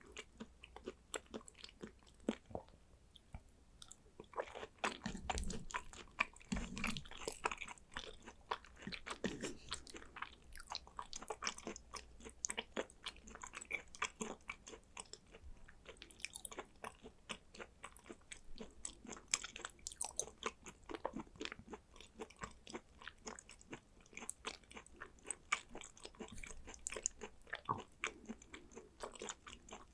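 A person chewing thinly sliced raw Korean beef (Hanwoo pyeonyukhoe), a steady run of many small mouth clicks and smacks. A couple of louder low knocks come about five to seven seconds in.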